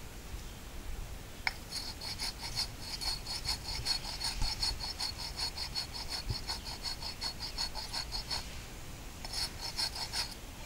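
Concrete retaining-wall block being scraped with a piece of another concrete block in quick back-and-forth strokes, grinding off material to make the surface flat. The scraping starts about a second and a half in, stops briefly near the end, then picks up again for about a second.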